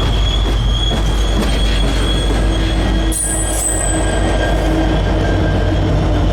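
Freight train of tank cars rolling past with a heavy, steady rumble and a constant high-pitched wheel squeal; a sharper, higher squeal cuts in briefly about three seconds in.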